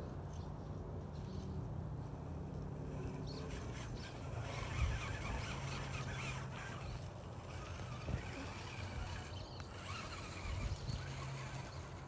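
RC rock bouncer crawler's motor and drivetrain whirring in spurts as it climbs over landscape blocks and rocks, with tyres scrabbling on stone and a few light knocks.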